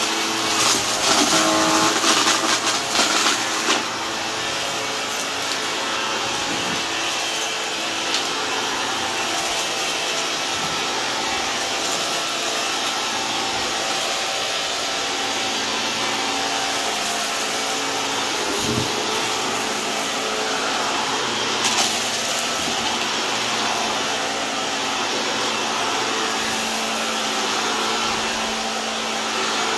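Shark Lift-Away upright vacuum cleaner running on carpet with a steady motor hum. For the first few seconds it crackles and crunches loudly as it sucks up debris, with another brief crackle a little after twenty seconds in.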